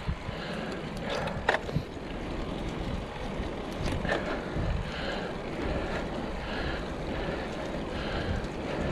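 Steady rush of wind on the microphone of a moving road bike, with tyre noise on the paved trail and a couple of sharp clicks about a second and a half in.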